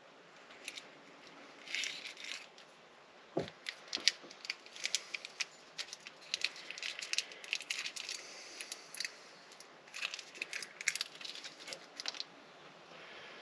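Irregular light clicks, small knocks and crinkling rustles as chainsaw parts and their wrapping are handled on a workbench.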